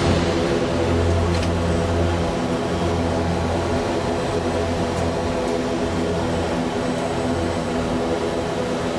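ATR 72's twin turboprop engines and propellers running steadily while taxiing, heard inside the cockpit as an even drone with several steady tones.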